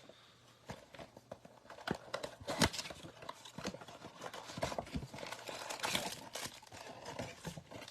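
A cardboard trading card box being opened and its packs taken out by hand: irregular taps, knocks and crinkling rustles, with one sharper click about two and a half seconds in.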